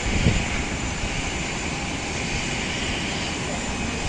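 Steady jet aircraft noise, an even rushing sound that holds constant throughout.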